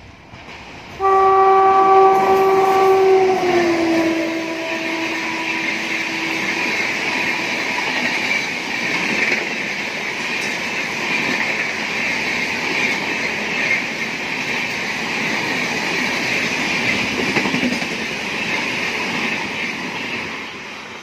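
Rajdhani Express locomotive horn starting about a second in, its pitch dropping at about three and a half seconds as the locomotive passes at speed, then fading out. The LHB coaches follow with steady, loud wheel-on-rail rumble and clatter, easing off near the end.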